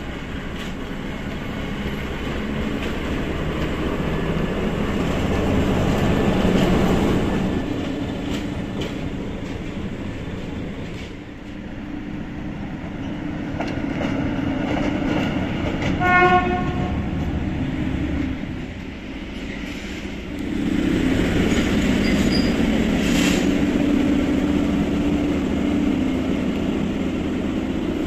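SM42 diesel-electric shunting locomotive's engine running, swelling and fading as it moves, with one short horn blast a little past halfway. The engine grows louder in the last third.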